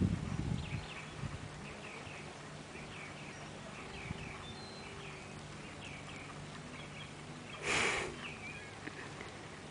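Outdoor ambience: small birds chirping repeatedly over a faint steady low hum, with a few low thuds at the start and a brief loud rush of noise about eight seconds in.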